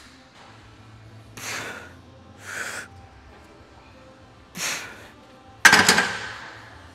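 Three short, forceful breaths from a lifter under a bench-press bar, then a loud metal clank about two-thirds of the way through as the loaded barbell is racked onto the power rack's hooks, ringing briefly before dying away.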